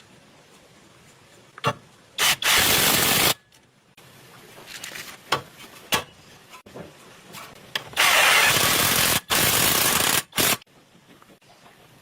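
Pneumatic impact wrench run in three long bursts, the second two almost back to back, with short sharp clicks between them, as a suspension part is unbolted or tightened.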